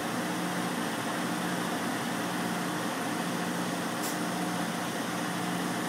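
Truck engine idling steadily, a constant low hum.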